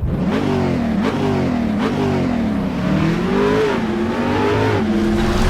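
2014 Yamaha R6's inline-four engine under way, its pitch climbing and dropping back several times as it revs and shifts, then holding steadier in the last second or so, over a steady rush of noise.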